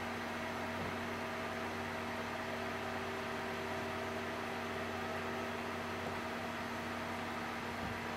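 Freightliner M2 106 Johnston RS655 street sweeper truck idling, a steady, unchanging engine hum.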